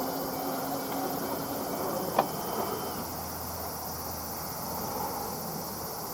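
Insects chirping in a steady, high, even pulse, under the low tone of the train that has just passed, which fades out over the first two seconds; a single sharp click about two seconds in.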